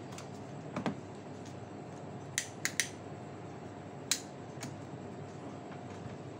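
A handful of short, sharp clicks and taps, three in quick succession midway and a single louder one a little later, over a steady background hum.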